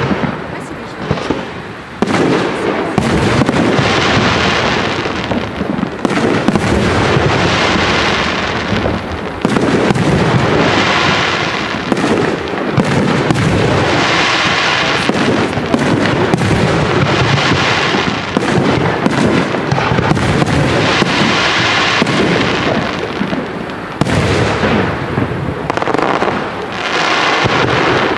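Professional aerial firework shells launching and bursting in rapid succession, a dense barrage of booms and bangs. A hissing crackle swells up after many of the bursts, about every couple of seconds.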